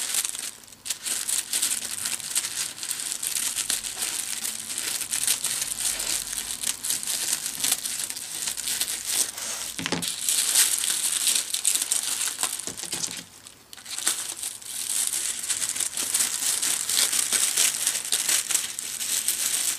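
Thin plastic gift wrapping crinkling and rustling as hands work at it to open a parcel, with a short lull about two-thirds of the way through.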